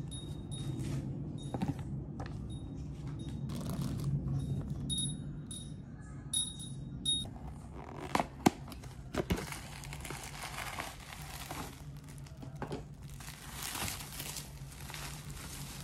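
Paper and cardboard being handled, with a few sharp clicks about halfway through, then plastic bubble wrap crinkling steadily as an item is unwrapped.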